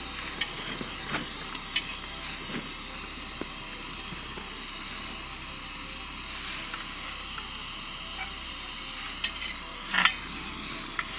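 Portable butane cartridge stove burning with a steady hiss under a flat iron tawa as rotis cook. Metal tongs click lightly against the pan now and then, with a louder clatter about ten seconds in as a roti is lifted off, and a few quick clicks near the end.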